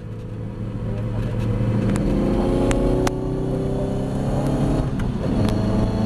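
Ginetta G40 race car's engine accelerating hard, heard from inside the cabin, building in loudness with the note breaking about three seconds in and again near five seconds, with a few sharp clicks over it.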